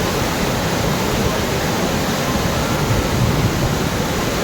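Waterfall pouring over a dam, a steady loud rush of water.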